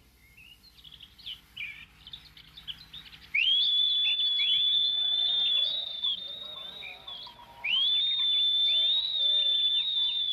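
Birds chirping, cut across by two long, shrill whistles; each sweeps up and then holds one steady note for a couple of seconds. The first comes a little past three seconds in, the second near eight seconds.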